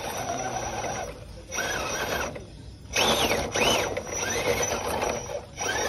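RC rock crawler's electric motor and gear train whining in several short bursts as the throttle is worked, the pitch rising and falling in each burst.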